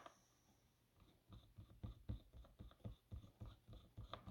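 Faint, irregular small clicks and scrapes of a screwdriver starting a screw into a laptop's plastic back cover, beginning about a second in.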